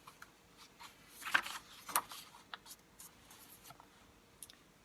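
Paper rustling as a picture book's page is turned, with a soft swish a little over a second in and a sharper flick at about two seconds.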